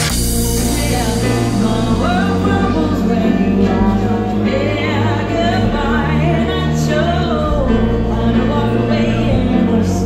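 Music: a singer performing a slow song over sustained piano chords.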